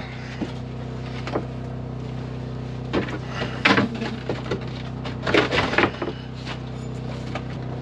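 Scattered knocks and clatter of tools and materials being handled, the busiest stretch between about 5 and 6 seconds in, over a steady low hum.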